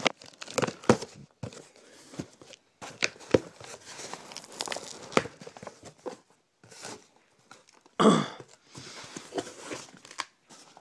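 A shipping box being torn open and its packing peanuts rummaged through: an irregular run of tearing, crinkling and rustling noises with scattered clicks, and one loud rip about eight seconds in.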